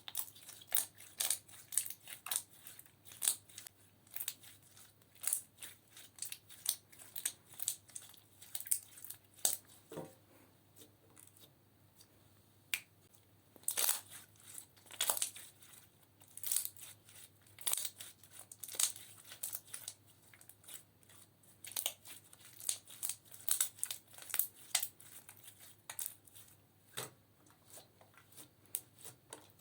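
Slime being squeezed and kneaded by hand, giving off irregular sharp popping and crackling clicks, several a second, as air pockets burst.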